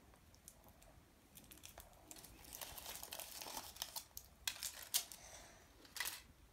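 Foil wrapper of a Chupa Chups chocolate egg crinkling and tearing as it is peeled off by hand. The small crackles grow louder from about two seconds in and stop shortly before the end.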